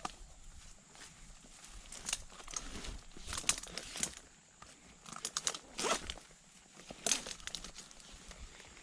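Irregular crunching and scraping strokes, a few seconds apart: climbing spikes biting into the soft bark of a hollow ash tree.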